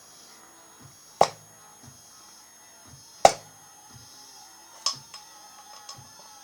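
Three sharp clicks or knocks, roughly one and a half to two seconds apart, over low background noise.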